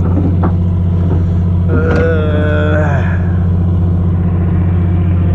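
Steady low drone of the fishing boat's engine running throughout, with a brief drawn-out pitched sound about two seconds in.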